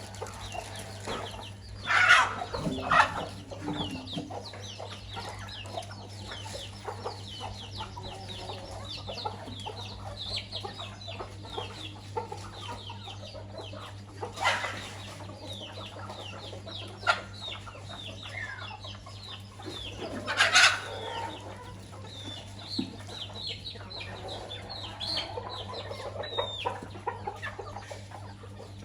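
Chickens clucking, with many short falling chirps of chicks peeping throughout and a few loud, sharp calls from the adult birds about two, fourteen and twenty seconds in.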